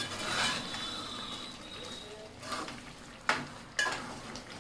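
A spoon stirring thick chicken and cucumber curry in a pan, scraping against the pan with a light sizzle, then three sharp taps in the second half.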